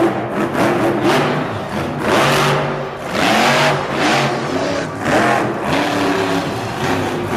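Grave Digger monster truck's supercharged V8 revving hard in repeated surges, roughly once a second, the pitch climbing with each burst of throttle as the truck wheelies and spins on the dirt.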